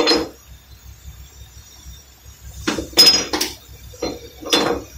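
Metal tools and parts clinking and clattering against each other as they are handled at a front brake disc and wheel hub. There is a clatter at the start, a run of three clinks in the middle and another clink shortly before the end.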